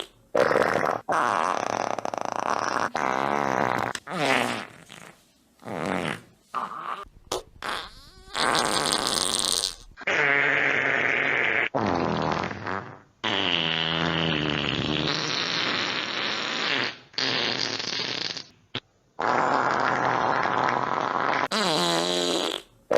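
A string of more than a dozen fart sound effects cut back to back with short gaps, each lasting up to a few seconds. Many are tonal with a wavering pitch, and a few are noisier and spluttery.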